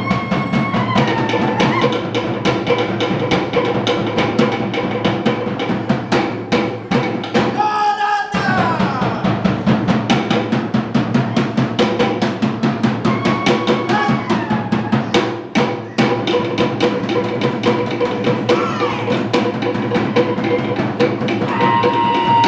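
Tahitian ʻōteʻa drumming: fast, steady beats on slit-log drums and drums, with a brief break about eight seconds in.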